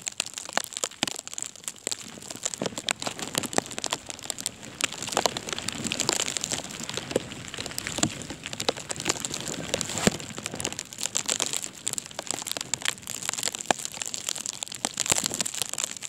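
Dense, irregular crackling and crinkling right at the phone's microphone, with no steady rhythm, as the phone is carried through a snowstorm.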